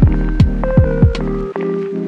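Background music with a beat: held chords, sharp percussive hits and low bass notes that slide down in pitch. The deep bass drops out about three-quarters of the way through.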